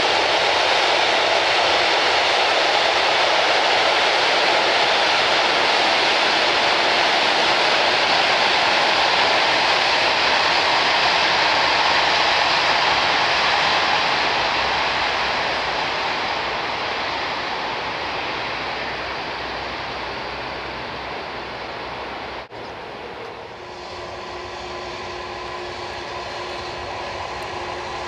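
Freight train rolling past on the rails: a loud, steady rush of wagon wheels that fades away over the second half. After a sudden cut, a second freight train hauled by electric locomotives approaches, its noise slowly growing with a steady hum of a few held tones in it.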